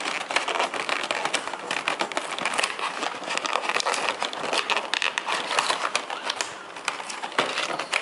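Thin plastic wrapping being peeled off a clear plastic blister tray, crinkling and crackling continuously with many small clicks.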